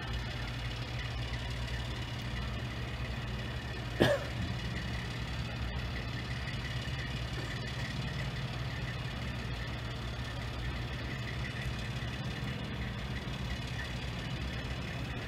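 Engine of a truck-mounted crane idling steadily with a low hum. About four seconds in, a brief, loud sound cuts in once.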